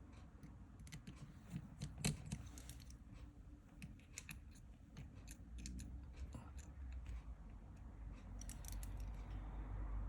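Small scattered clicks and taps of metal repair tools and parts on an iPhone 6s being reassembled, over a low steady hum.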